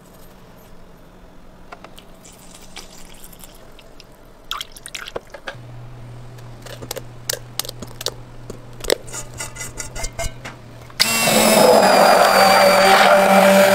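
Stainless steel bowls clinking and knocking while raw eggs are poured into a pot of flour, then a handheld immersion blender switches on suddenly near the end and runs loud and steady, blending the batter.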